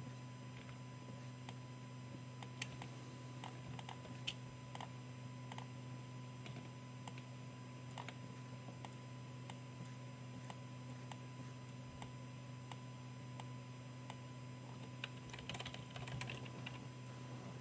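Computer keyboard keys tapped: scattered single keystrokes, then a quick run of arrow-key presses near the end. A steady low hum runs underneath.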